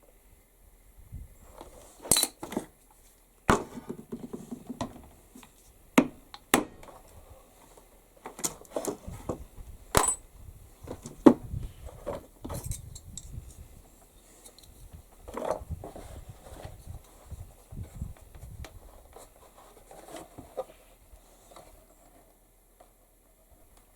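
Hand tools and small metal hardware being handled on a workbench during leatherwork: irregular sharp clicks, clinks and knocks with soft rustling between, fading out near the end.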